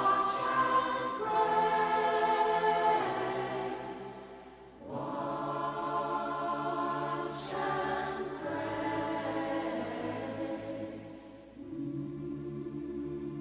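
A dense, choir-like mass of sustained wailing voices that swells and fades in waves, dipping about four and a half seconds in and again near the end. This is the purported 'sounds of hell' recording said to come from a deep borehole in Siberia.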